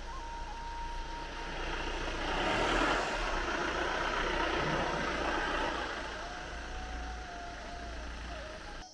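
A motor vehicle passing, its noise rising to a peak about three seconds in and then slowly fading.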